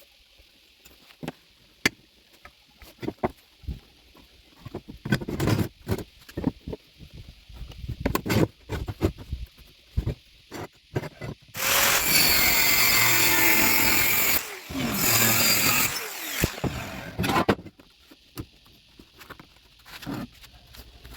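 Scattered knocks and clatter of metal being handled, then about 12 seconds in an electric power cutting tool runs loudly through a metal tube for about two and a half seconds, stops briefly, and cuts again for about three seconds, its motor pitch gliding as it speeds up and slows.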